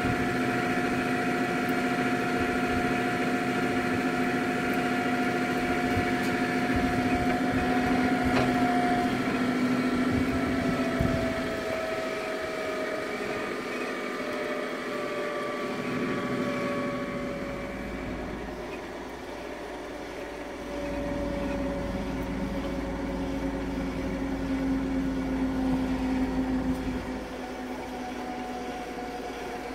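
OMG MB225 double-shaft mixer running: a steady machine hum and whine from its drive, with several tones that slide slowly lower in pitch partway through and a deeper hum joining about halfway in.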